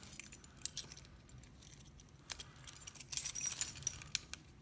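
A bunch of metal keys jangling and clinking in the hand as they are sorted through: scattered single clinks, with a longer run of jangling about three seconds in.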